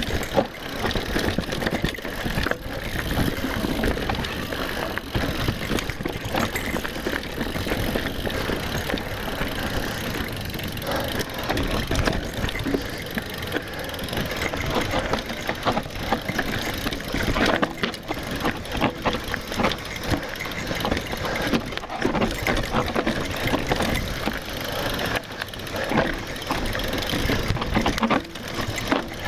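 Mountain bike ridden over a rough dirt trail: tyres rolling over dirt and roots, with steady rattling and frequent knocks from the bike's frame and parts.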